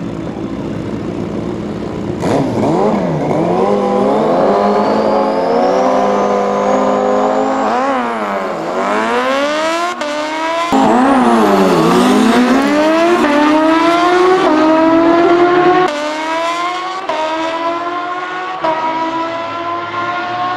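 Turbocharged Suzuki Hayabusa and supercharged Kawasaki Ninja H2 inline-fours launching off the line together about two seconds in and accelerating hard down the strip. The engine notes rise again and again, each broken by a sudden drop in pitch as the riders snap through the gears.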